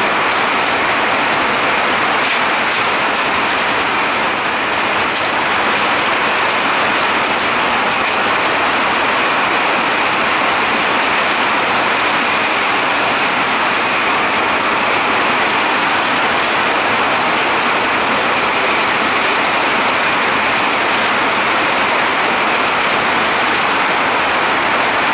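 Hail and heavy rain pelting down: a dense, steady hiss with faint scattered ticks of hailstones striking.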